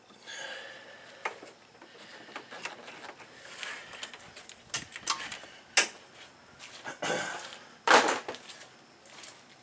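Scattered clicks, knocks and rubbing as the small radiator hose on a 2005 Mazda Tribute is worked loose and pulled off the radiator neck. A sharp knock about eight seconds in is the loudest.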